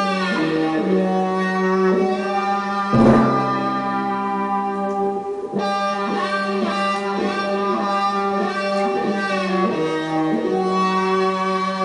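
Instrumental passage of a pop song played from a vinyl record on a turntable: long held notes over a steady low note, with a louder accent about three seconds in and no singing.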